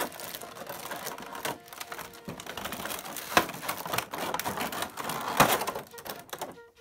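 Clear plastic packaging, a soft bag and a thin blister tray, crinkling and crackling irregularly as it is handled and pulled apart, with two sharper, louder crackles about three and a half and five and a half seconds in.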